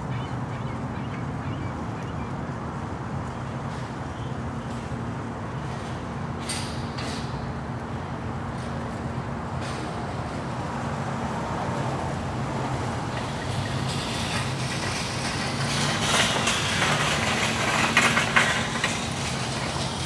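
Grocery store entrance ambience: a steady low hum under a wash of background noise, with a few short clicks and a louder, busier stretch of noise and clatter from about fourteen to nineteen seconds in.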